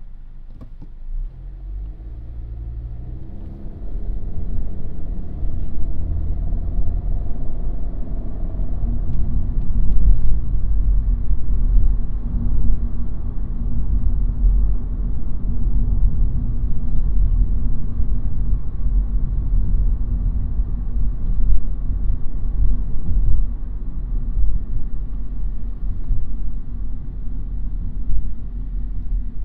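A car pulling away and accelerating, its engine note rising over the first several seconds, then a steady low rumble of engine and tyre noise as it drives on.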